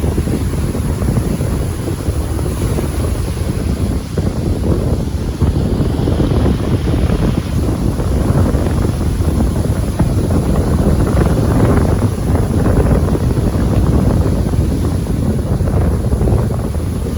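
Wind buffeting a phone's microphone: a steady, loud, low rushing rumble that rises and falls unevenly.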